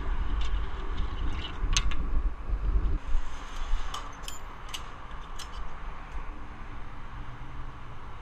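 Wind rumbling on the microphone, heaviest in the first three seconds, with scattered sharp metallic clicks and clinks from the billboard's steel frame and rigging hardware being handled.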